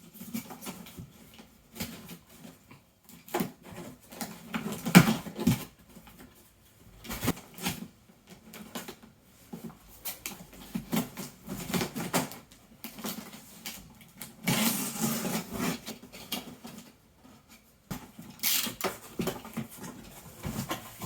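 Handling noise from a large cardboard jigsaw puzzle box being brought out and moved about: irregular knocks, bumps and rustles, the loudest about five seconds in and a longer rustle around fifteen seconds in.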